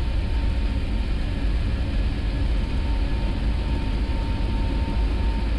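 Airbus A321neo takeoff roll heard from the flight deck: the engines at takeoff thrust and the wheels on the runway make a steady, deep rumble as the jet accelerates past 100 knots toward V1.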